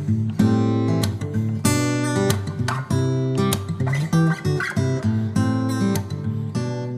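Background music: acoustic guitar strumming chords, with repeated strokes and changing chords.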